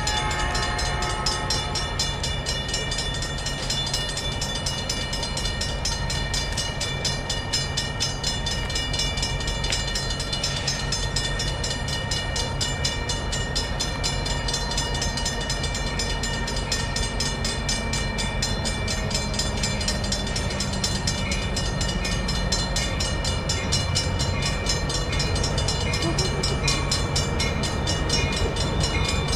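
Passenger train approaching slowly, its low engine rumble growing louder toward the end, over a fast, steady repeated ringing of a bell.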